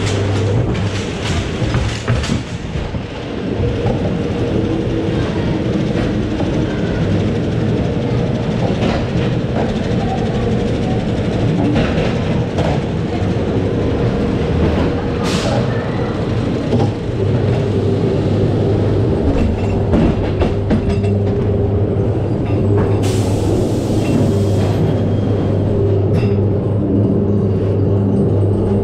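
Ghost train ride car rolling along its track: a steady rumble of wheels on the rail with a constant low hum, and occasional clicks and knocks.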